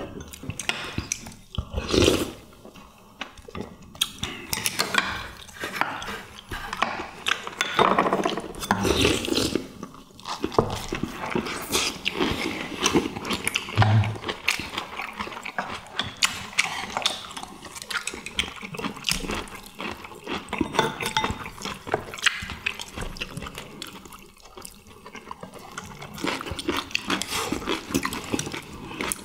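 Several people eating: slurping soup from spoons and chewing, with spoons and chopsticks clicking against ceramic bowls and plates in many short, irregular taps.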